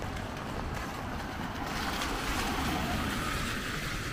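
Heavy rain on a city street with passing traffic, tyres hissing on the wet road, the hiss swelling a little in the second half.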